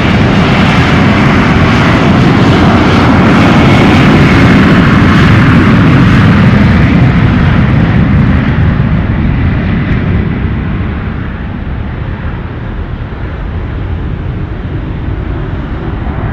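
Airliner passing close by, loudest a few seconds in, then fading as its higher-pitched hiss dies away and a lower rumble lingers.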